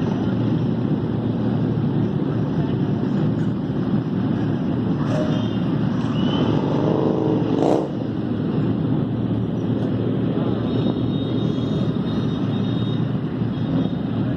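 Motorcycle on the move with steady wind and road noise; about five seconds in, an engine revs up, its pitch rising for some three seconds, then cuts off sharply.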